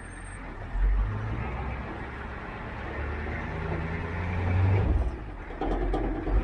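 Diesel engine of compact equipment working logs, its low rumble rising and easing with the load, louder about a second in and swelling before a brief dip near five seconds. A short knock comes near the end.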